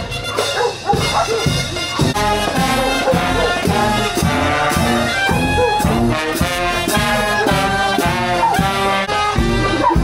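Brass marching band playing as it passes, horns carrying the tune over a steady beat of low sousaphone notes.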